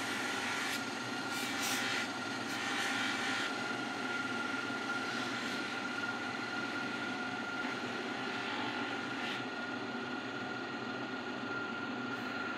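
Small electric polishing motor running steadily with a constant high whine, used on a stainless steel watch case. There is some brief scratchier noise in the first few seconds.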